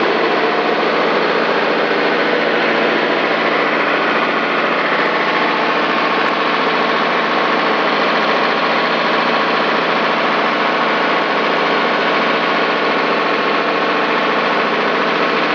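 John Deere 5415 DT tractor's diesel engine running steadily as it pulls a furrowing implement through the soil, heard from the operator's seat.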